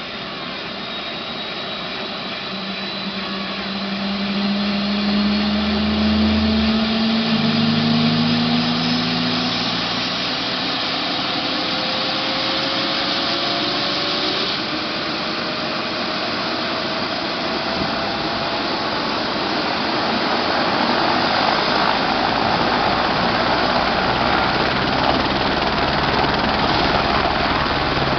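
Helicopter turbine engine and rotor running up to take-off power for lift-off. A whine rises slowly in pitch, and the loud, steady engine and rotor noise grows louder about five seconds in and again near the end.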